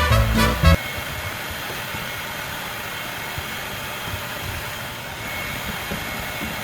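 Music cuts off under a second in, giving way to the steady rushing noise of a shop vacuum running, with a faint high whistle entering about five seconds in.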